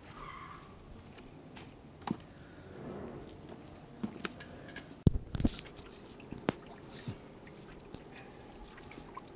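Scattered knocks and clicks of a wooden cider-press frame and boards being handled and set down, with soft handling noise from mesh press cloths folded over crushed apple pulp; the loudest knock comes about five seconds in.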